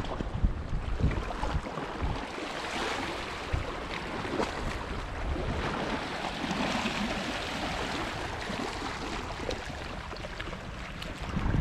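Sea water washing and lapping against the shore, with gusts of wind buffeting the microphone in low rumbles.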